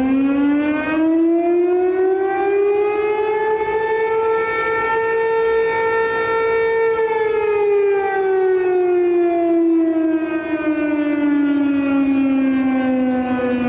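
Civil defense siren sounding one slow wail. Its pitch rises over about four seconds, holds for a couple of seconds, then falls slowly.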